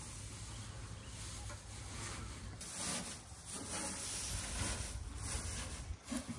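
Dry straw rustling and crackling as it is gathered and spread by hand, in several swishes that come louder about halfway through.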